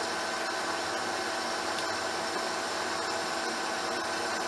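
Metal lathe running with the carriage on power feed, the tool taking a cut in a mild-steel ring: a steady machine hum and cutting noise at an even level, with a few constant tones through it.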